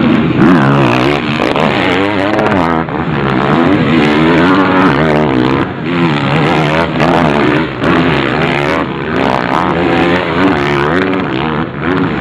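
Motocross bikes racing, their engines revving hard. Several engines overlap, each rising and falling in pitch as the riders accelerate and shift.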